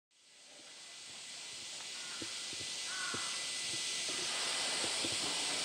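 A steady, high-pitched summer cicada chorus fading in over the first few seconds, with a few brief bird calls over it, two of them close together about three seconds in.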